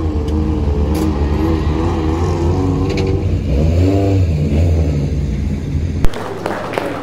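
Race car engine running with its revs rising and falling under light throttle, and a bigger rev just after four seconds in. About six seconds in, the engine sound cuts off abruptly with a click, and clapping follows.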